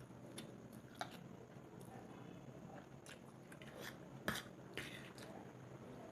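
Cutlery clicking against a plate three times, the loudest about four seconds in, amid quiet wet eating sounds of someone eating Maggi instant noodles and a fried egg.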